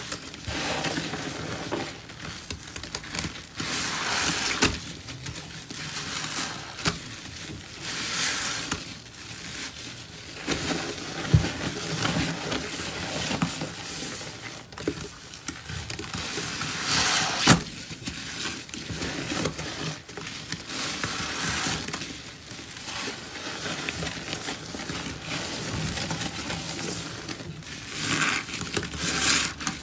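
Gloved hands squeezing and working scrub sponges soaked in a thick cleanser-and-grout paste: wet squelching and crackling of the foamy paste in irregular bouts, with a few sharper pops.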